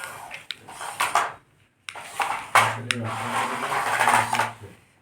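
Toy monster car's small electric motor whirring, with clattering plastic knocks; the whirr steadies and holds from about halfway through, then fades near the end.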